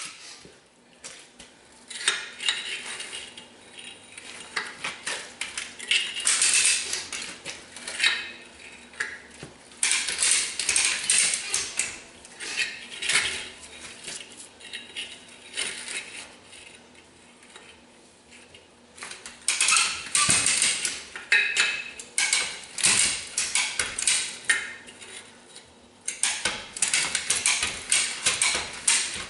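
Metal clinking and clattering in several bursts, with quieter gaps between, as steel tools and parts are worked against the skid steer while its rubber track is fitted back on.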